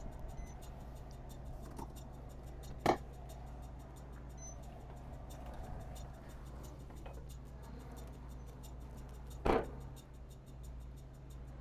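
Quiet background music with a faint, regular ticking beat. Two brief sharp sounds cut through it, about 3 seconds in and again near 9.5 seconds; the second is the louder.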